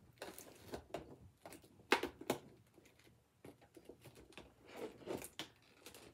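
Plastic toy packaging being handled and pulled at by hand: irregular crinkles, rustles and small clicks, with two sharper snaps about two seconds in.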